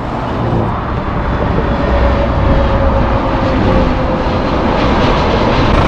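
Bus engine and road noise on the move: a steady rumble that swells up over the first second, with a faint whine that drops slightly in pitch.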